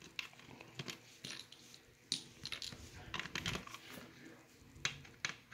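Small plastic pieces of a pop-up game being handled and set down: a scatter of light clicks and taps, a few sharper ones about two, three and five seconds in.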